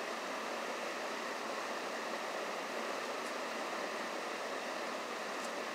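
Steady, even hiss of background noise, with a couple of faint high ticks about three and five and a half seconds in.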